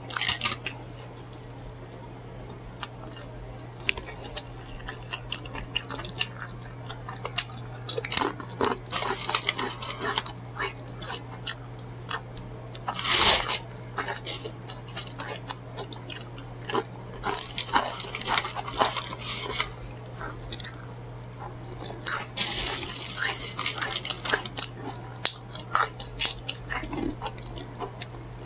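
Close-miked chewing, biting and crunching of food, in irregular bursts of crackly mouth sounds, over a steady low hum.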